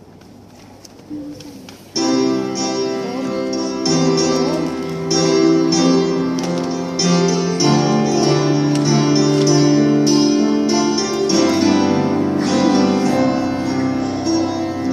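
Instrumental music starts suddenly about two seconds in, after a quiet moment. It plays sustained chords that change every few seconds.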